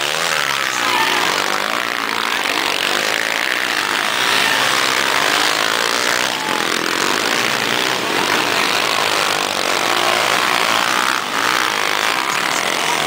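Motocross motorcycle engines revving hard as bikes ride past close by, the engine pitch rising and falling with the throttle.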